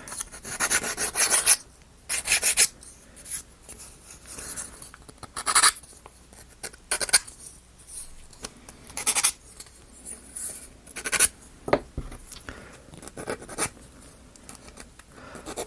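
Short rasping, scratching strokes on the laser-cut plywood parts of a wooden model kit, coming in irregular bursts every second or two.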